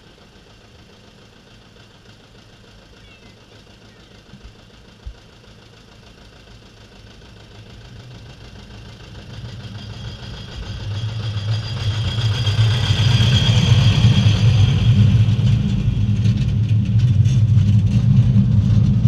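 Small diesel locomotive of a park railway approaching and passing close by, its engine a low steady drone that grows much louder from about eight seconds in. Sharp clicks near the end come as the carriages' wheels run past.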